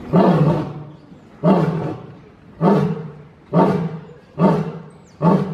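Male lion roaring in a series of six short, deep grunting roars about a second apart, coming a little quicker toward the end: the grunting close of a lion's roaring bout.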